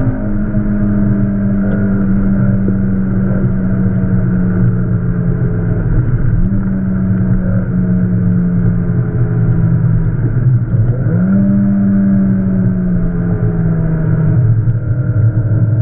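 Peugeot 306's XU7JP4 1.8-litre four-cylinder engine on Jenvey individual throttle bodies, heard from inside the cabin while lapping. Its note sinks slowly, then jumps back up about six seconds in and again about eleven seconds in.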